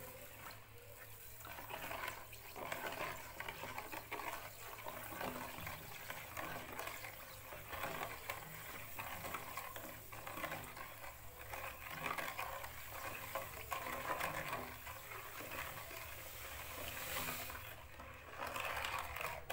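A wooden spoon stirring lemon juice in a plastic bowl as granulated sugar is poured in, the liquid swishing unevenly.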